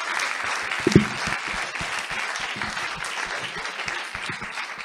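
Audience applauding, a dense, even patter of many hands clapping. There is one short, louder thump about a second in.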